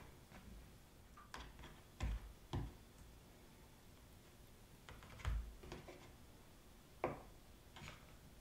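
Faint handling noise from sausage links being twisted and laid down on a wooden cutting board. It comes as a few soft knocks and taps: two about two seconds in, another around five seconds, and a sharper tap about seven seconds in.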